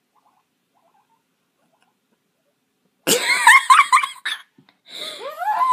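Near silence, then about three seconds in a sudden burst of high-pitched squealing laughter that breaks off briefly and starts up again near the end.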